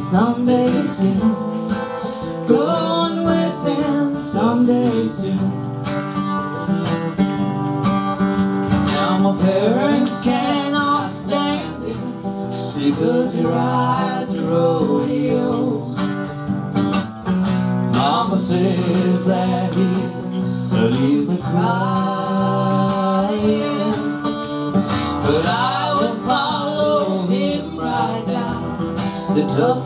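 Live acoustic country-folk song: strummed acoustic guitar and a hand drum under a man and a woman singing together.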